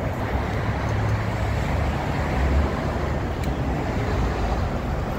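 Steady street traffic: a continuous low rumble of cars and other vehicles going by.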